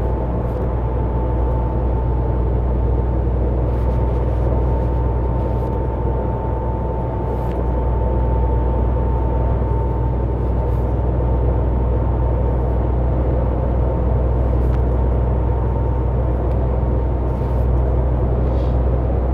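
In-cab noise of a MAN TGX 500 hp straight-six diesel semi-truck cruising on the motorway: a steady low engine drone mixed with road noise. A thin high whine runs along with it and fades about two-thirds of the way through.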